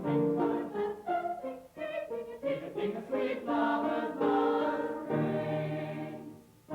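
A group of voices singing in harmony, with a brief drop-off just before the end.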